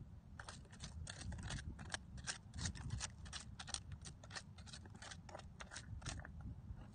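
Hands digging through sand and shell grit while clam-hunting: an irregular run of short scraping clicks, several a second. Low wind rumble on the microphone underneath.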